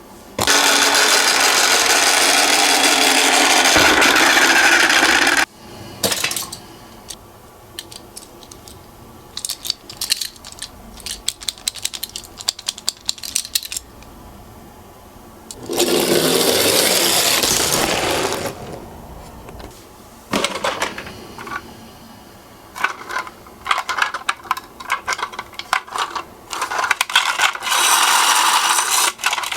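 Toy minicars rolling down a slope: three stretches of steady rolling rattle, with scattered clicks and clatters between them.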